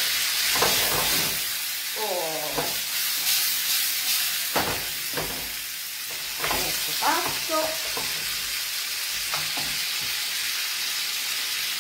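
Cherry tomatoes and herbs sizzling in a hot skillet while being stirred with a wooden spoon, which knocks and scrapes against the pan now and then.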